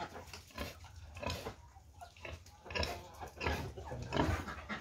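Domestic pig grunting, a few short grunts spread through the moment.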